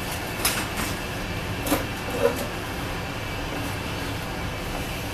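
Steady hum of a furnace running, with a few light clicks and knocks from handling in the first couple of seconds.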